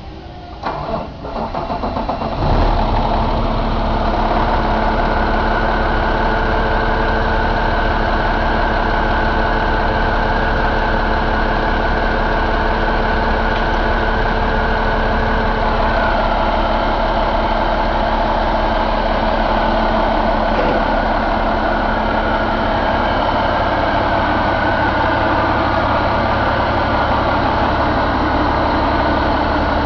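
Cummins ISX15 inline-six diesel engine starting up about two seconds in, then idling steadily.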